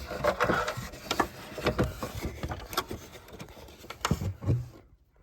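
Hand working behind a car stereo inside the dashboard: plastic and wiring rustling and scraping, with many irregular knocks and clicks as a connector plug is pushed at the back of the radio. It stops just before the end.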